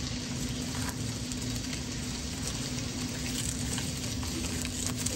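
Steady crackling, sizzling noise from a nature documentary's soundtrack played over room speakers, with a low steady hum underneath.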